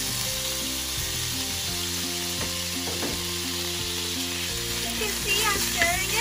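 Crushed garlic sizzling in melted butter in a frying pan, with a steady hiss, while it is stirred with a utensil.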